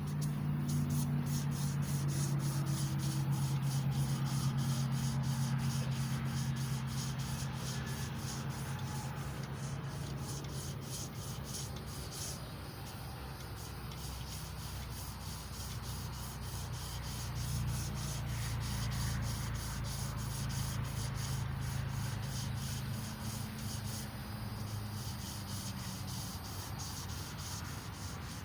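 Emery cloth rubbing back and forth around a small-block Chevy 350 crankshaft journal, a continuous rapid scratchy sanding as the journal is polished. A low steady hum sits underneath, strongest in the first few seconds.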